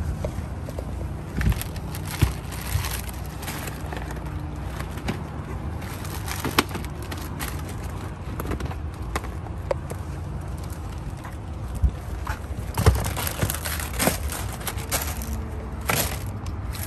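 Plastic packaging crinkling and rustling while cardboard tubes and boxes are handled, with scattered clicks and knocks as they are set down and picked up, thickest in a flurry near the end, over a steady low rumble.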